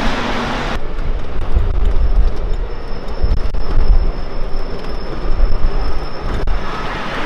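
Ride-on miniature railway train running along the track, heard from a passenger carriage: an uneven low rumble with a faint steady high-pitched whine over it.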